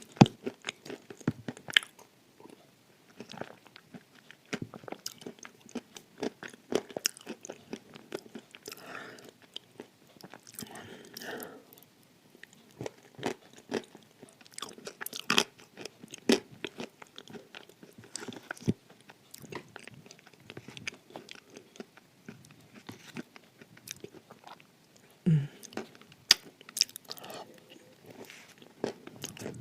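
Dry edible clay being bitten and chewed close to the microphone: a run of many sharp, irregular crunches with short pauses between mouthfuls.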